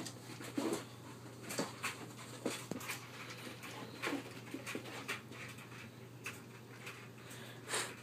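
Dog panting hard in short, irregular breaths as it chases a laser dot.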